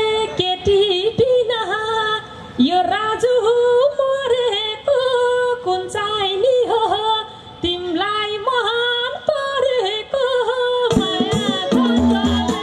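Nepali lok dohori folk song sung live: a woman's voice sings an ornamented, sliding melody through a stage PA over light accompaniment. About eleven seconds in, the band's drums and bass come in strongly.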